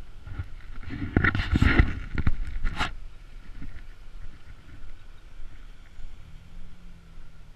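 A pickup truck engine idling steadily, apparently a lifted Ford Ranger. About a second in, a two-second burst of loud rustling and knocking sits close to the microphone.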